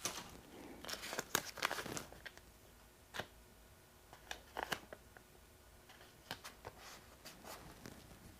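Masking tape being pulled off the roll, torn and pressed down: soft crackling rips and a few sharp clicks with quiet gaps between.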